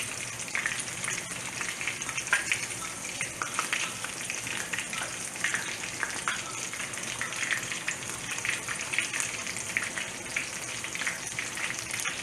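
Beer-battered onion rings frying in hot oil in a frying pan: a steady crackling sizzle full of small pops.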